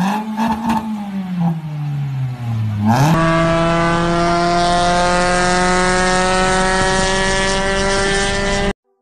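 Suzuki Mehran's small three-cylinder engine droning hard under full throttle at high speed, heard from inside the cabin. For about three seconds its pitch wavers up and down. Then it settles into a steady high drone that creeps slowly higher as the car nears its top speed of about 140 km/h, and it stops abruptly near the end.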